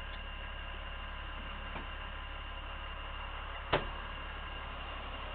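A steady hum with faint constant tones, broken once by a short sharp knock about three and a half seconds in.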